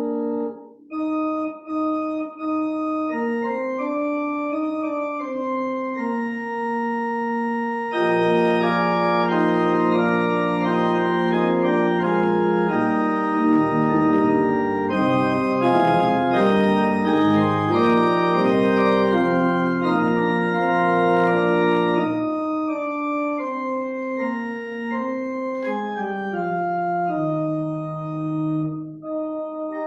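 Church pipe organ playing slow, sustained chords that change in steps. The organ grows fuller and louder, with deep bass notes, from about 8 seconds in, then drops back softer about 22 seconds in.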